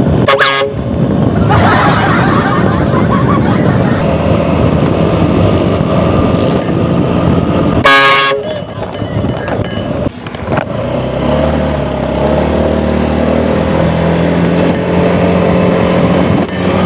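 A loud bus horn fitted to a motorcycle blasts briefly just after the start and again about eight seconds in, over steady street traffic and running motorcycle engines.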